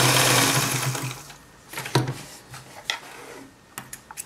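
Adler 189A vintage sewing machine running fast on a three-step zigzag stitch, then stopping about a second in. A few sharp clicks follow as the work is handled.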